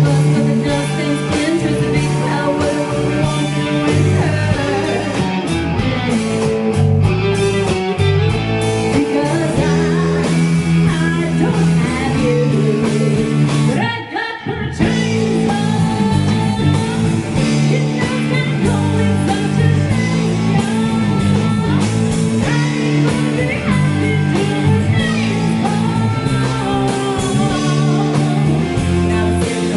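A band playing a song with singing and guitar, with a short break in the sound about halfway through.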